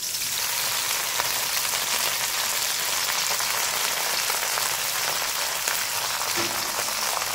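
Hot oil sizzling and crackling steadily in a kadai as fresh gongura leaves fry on top of shallots, garlic and dried red chillies.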